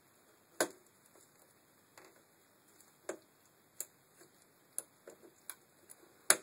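Sharp clicks and taps of a small hand tool and metal and plastic parts being handled at the bottom of a VW Passat B5 window regulator rail: about eight at uneven spacing, the loudest about half a second in and just before the end.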